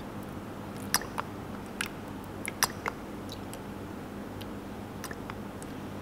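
Scattered small clicks and ticks of a plastic squeeze bottle being handled and squeezed as oil is dispensed into a plastic measuring jug, over a steady low hum.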